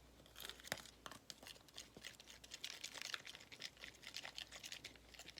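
Homemade slime mixture being stirred in a bowl: a faint, quick, irregular run of scraping and clicking as the utensil works the thick mixture against the bowl.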